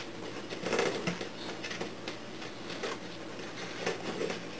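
Soft rustling and light scuffing of a thick rope being handled and worked tight into two half hitches around a wooden pole.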